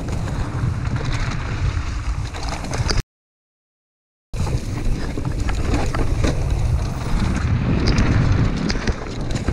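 Mountain bike descending a dirt singletrack: wind buffets the helmet-camera microphone with a low rumble under the hiss of tyres on dirt, with scattered rattles and knocks from the bike over bumps. The sound cuts out completely for about a second a few seconds in, then resumes.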